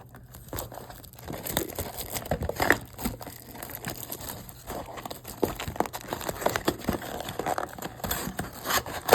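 Plastic and foil wrapping of a trading-card box being torn open and crinkled by hand: irregular crackling and rustling, busier from about a second and a half in.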